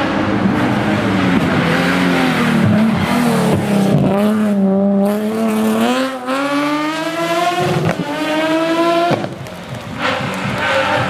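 Nissan 370Z's 3.7-litre V6 engine being driven hard: its pitch dips, then climbs steadily for several seconds as it revs up, cuts off sharply about nine seconds in as the throttle is lifted, and picks up again near the end.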